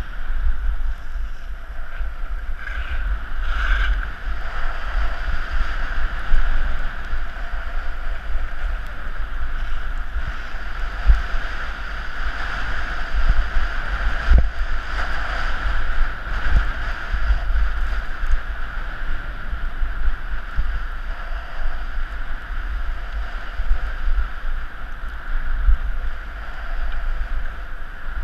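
Wind rushing over the microphone of a skier's head-mounted camera during a downhill run, with a low rumble and the steady hiss and scrape of skis sliding on packed snow. There are a few sharp knocks, around the middle.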